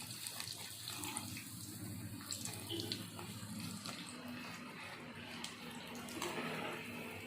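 A round of bread deep-frying in hot oil in a kadai: a steady sizzle with small crackles.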